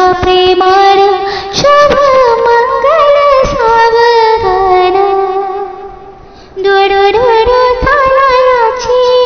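A woman singing a Marathi mangalashtak, the verses sung at a Hindu wedding, in long held notes with ornamented glides between them. The singing fades out about five seconds in and resumes a little over a second later.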